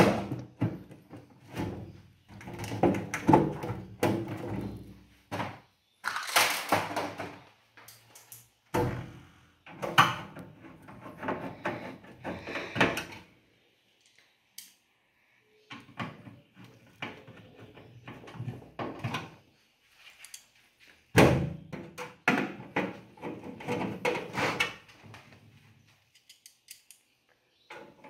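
A microwave oven's sheet-metal outer cover being fitted and screwed down: irregular knocks, clunks and scrapes of metal, with a few short pauses.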